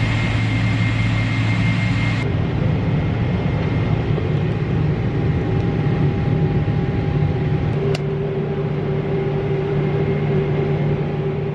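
Steady drone of an airliner cabin in flight: a low engine hum under rushing air noise. The drone shifts abruptly twice, about two seconds in and again near eight seconds.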